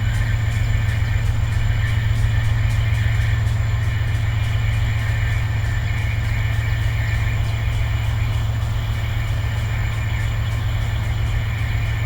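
Railway locomotive running with a steady, loud low drone and a faint, regular clicking over it.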